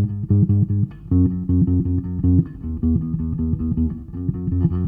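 Ibanez electric bass guitar played through a bass amp and heard from the amp's speaker, dry with no pedal in the chain: a riff of quick repeated plucked notes, about three or four a second, moving to a new pitch every second or so.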